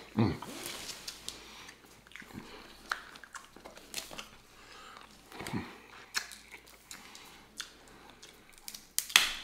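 Snow crab leg shells cracking and snapping as they are broken open by hand, with close-up chewing of the crab meat in between. The cracks are irregular and sharp, loudest just after the start and again near the end.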